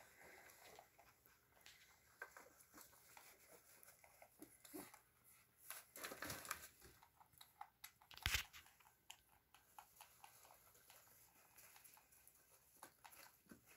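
Faint rustling and scratching of wood-shavings bedding as rabbits shuffle about, with scattered small clicks, a louder patch of rustling about six seconds in and one sharp knock a little after eight seconds.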